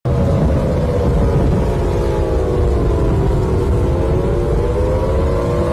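Strong storm wind rumbling over the microphone, with several whining tones that slide down in pitch and then rise again.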